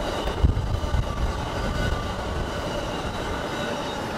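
Amtrak Pacific Surfliner passenger train rolling over a steel trestle bridge: a steady rumble of wheels on rail, with a thin high whine that sinks slightly in pitch. The train's end, with its locomotive, passes near the end.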